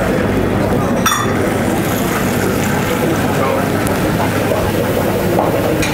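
Steady drone of a commercial kitchen's extraction hood, with one metal clink of a spatula against the frying pan about a second in.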